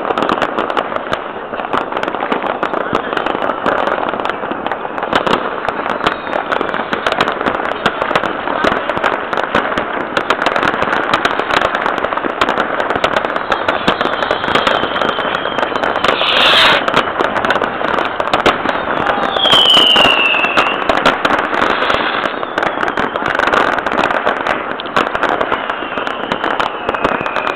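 New Year's fireworks going off all across a city at once: a continuous dense crackle of overlapping firecracker and rocket bangs. There is one louder bang about two-thirds of the way through, and a few whistling rockets, one falling whistle standing out soon after.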